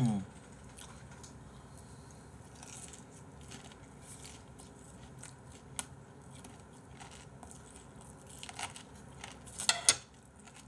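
Close-up chewing of crispy fried chicken, with soft crunches and scattered small clicks. Near the end come a few sharp clicks of metal tongs against the plate.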